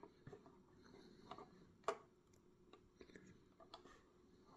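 Scattered small clicks and taps of puzzle box pieces being handled and tried in place, the sharpest one a little under two seconds in.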